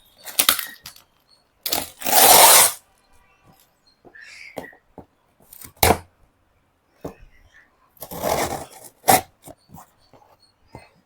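Cardboard shipping box being torn open: several ripping bursts, the longest and loudest about two seconds in, with a few sharp cracks later on.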